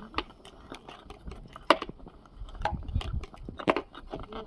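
Irregular clicks and light knocks of a TV antenna and its cable being handled and plugged in, with a few brief low rumbles.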